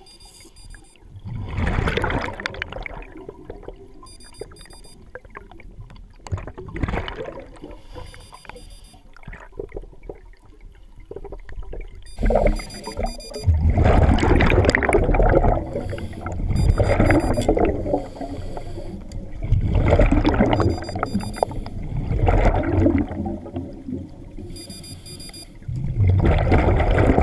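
Underwater scuba sound through a camera housing: bursts of a diver's exhaled bubbles rumbling and gurgling every few seconds. Faint, short, high pulsed beeps come through now and then.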